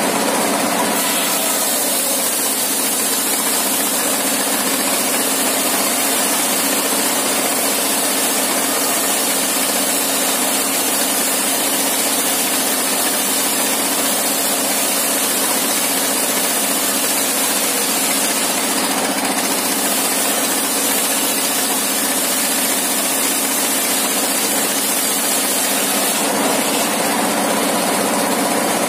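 Engine-driven circular table saw ripping a long plank into thin one-inch boards: the engine runs steadily under the noise of the blade cutting through the wood. The blade spins free briefly at the start and again near the end.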